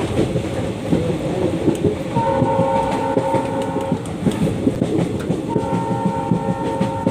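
WDG3A ALCO diesel locomotive's horn sounding two long blasts: the first about two seconds in, lasting around two seconds, the second starting about five and a half seconds in and still going at the end. Under it runs the steady rattle and clatter of the train running on the rails.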